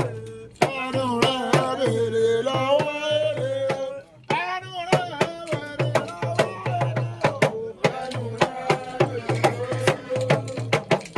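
Music: a voice singing a wavering melodic line over hand-drum percussion with many quick strokes. It breaks off briefly just after the start and again about four seconds in.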